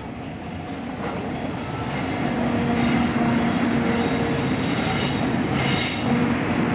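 Freight train hauled by a JR EF64 electric locomotive pulling out and rolling past, a steady noise of wheels on rails that grows louder over the first couple of seconds. Brief high-pitched wheel squeal about five to six seconds in.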